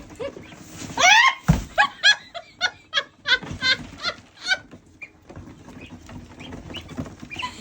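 A woman laughing in a run of short, pitched bursts for a few seconds, then dying down; a single low thump about a second and a half in.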